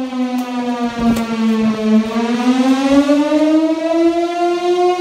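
Fire truck siren wailing: its pitch slides down for about two seconds, then winds back up and holds high.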